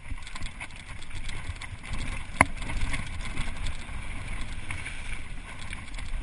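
Mountain bike running fast down a dirt and gravel trail: a steady rumble of tyres and wind buffeting the microphone, with the bike rattling over bumps and one sharp click about two and a half seconds in.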